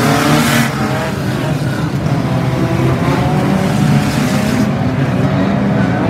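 A pack of unlimited banger race cars running and revving their engines together, loud and continuous.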